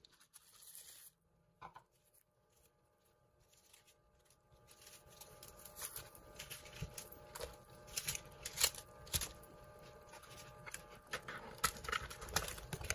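Soft scattered clicks and taps of ingredients (dried astragalus root, jujubes, seaweed, vegetables) going into a full stainless stockpot of broth, starting a few seconds in after near silence.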